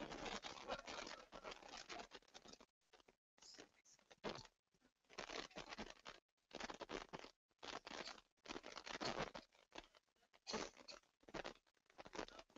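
Faint, indistinct noise of a crowd milling about in a hall. It keeps cutting in and out, dropping to dead silence several times, as the live stream's audio gate opens and closes.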